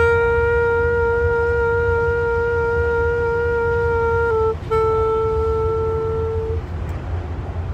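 A reed wind instrument with a curved metal neck plays one long held note. About four and a half seconds in it dips and breaks off briefly, then the same note is held again for about two more seconds. A steady low traffic rumble runs underneath.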